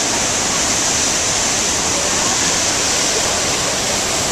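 Steady rush of Niagara Falls' water pounding down close by, with a hiss of drifting spray over it.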